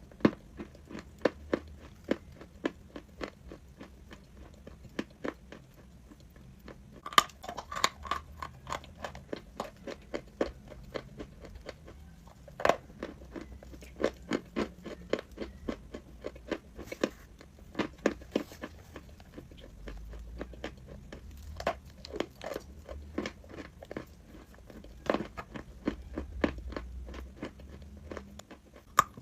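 Chalk being bitten and chewed close to the microphone: a dense run of short, crisp crunches, with a few louder bites, one about seven seconds in and a sharp one near the middle.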